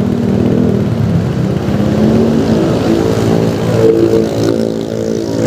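A motor vehicle's engine running steadily amid road traffic.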